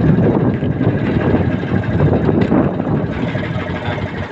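Engine of a motorized outrigger fishing boat running steadily under way, with wind buffeting the microphone.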